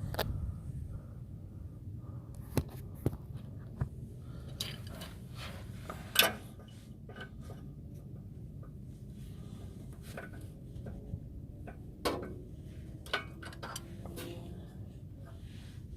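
Scattered metallic clinks and knocks of tools and parts being handled under a car, the loudest about six seconds in, over a steady low rumble of breeze on the microphone.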